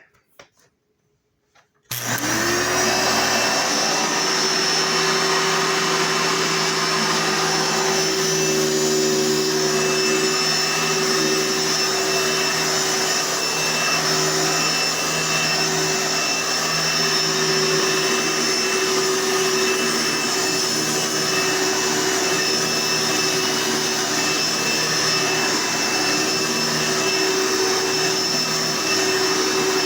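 Hoover Sprint vacuum cleaner switched on about two seconds in, its motor spinning up and then running steadily with a high whine. The motor fan makes a slight slicing noise, which the owner puts down to a dirty fan, not a serious fault.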